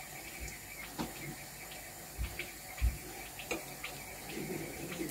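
Faint, scattered light clicks and soft knocks of a metal spoon against a bread cone and a small bowl as flour-and-water paste is spread on the cone's edge to seal it.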